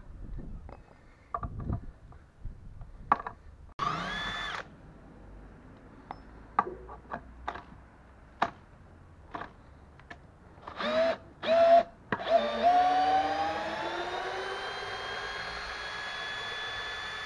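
Makita DHP481 18V cordless drill-driver motor running in short trigger bursts, then a long continuous run from about 12 seconds in, its whine rising in pitch and then holding steady while driving a long SPAX wood screw into timber. Scattered clicks and knocks fall between the bursts.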